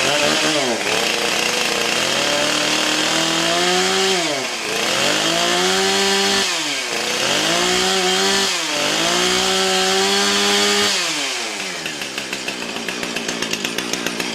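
Husqvarna 455 Rancher two-stroke chainsaw, just cold-started, revved up and back down about four times, then settling to a steady idle about eleven seconds in; it runs well.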